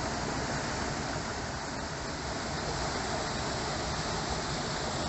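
Small waterfall cascading into a shallow stream, a steady rush of falling water.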